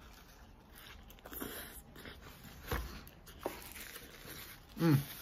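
A man chewing a crispy fish taco, with soft crunching and mouth noises and a thump a little under three seconds in. Near the end, a short voiced sound falling in pitch is the loudest thing.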